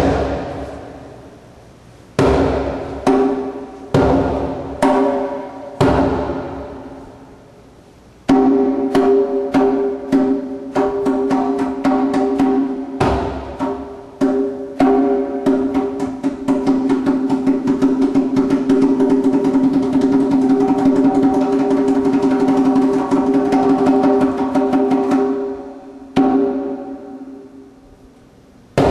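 Djembe played into a Max/MSP interactive sound system. It starts with single hits, each followed by a long ringing pitched tone. From about eight seconds in comes a quickening run of hits that builds into a dense, continuous roll, stops abruptly, and is followed by one last ringing hit.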